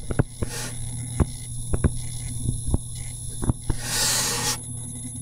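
Stylus tapping and clicking on a tablet as words are handwritten: irregular single clicks over a steady low electrical hum, with a brief rush of noise about four seconds in.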